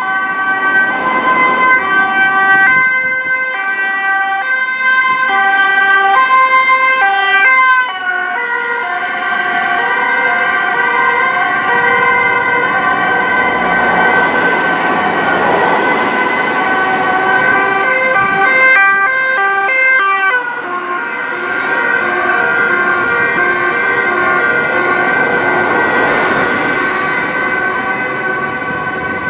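Two-tone sirens of Dutch emergency vehicles, an ambulance and a police van, sound together. Their high and low notes alternate out of step with one another over the noise of passing traffic.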